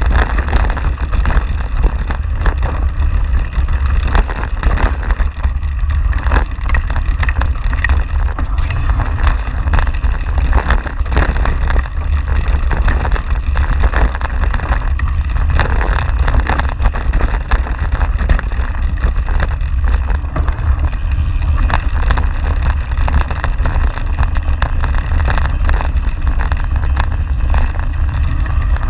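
Wind rumbling on the camera microphone over the noise of a YT Capra AL enduro mountain bike riding fast down a dirt trail: tyres on dirt with frequent short knocks and rattles of the bike over bumps.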